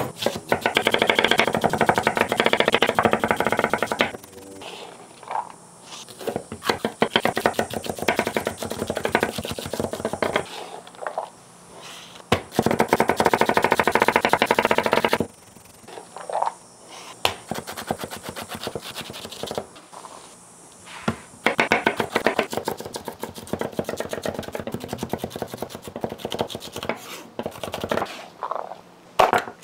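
Chef's knife rapidly chopping onion, celery and green peppers on a wooden cutting board: fast dense runs of knife strikes, loudest at the start and again around the middle, with slower single cuts in between.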